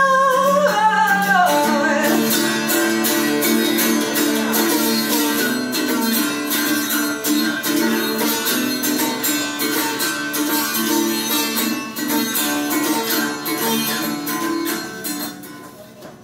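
Live guitar strummed in a steady rhythm, with a woman singing a phrase at the start; the guitar plays on and drops away near the end.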